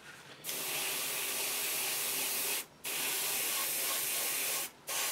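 Airbrush spraying paint, a steady hiss in three bursts that starts about half a second in and breaks off briefly twice.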